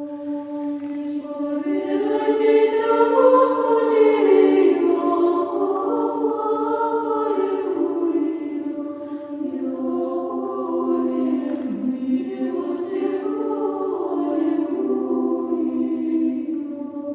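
A choir singing slow chant in long, sustained notes over a steady held low note.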